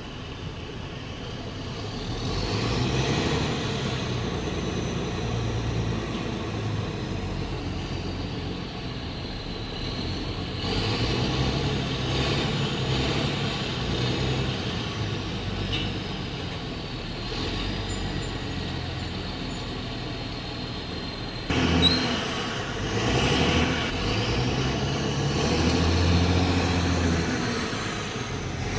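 Heavy diesel lorry engine revving hard in several long swells, its pitch rising and falling as it strains under load, with sudden jumps in the sound a few times.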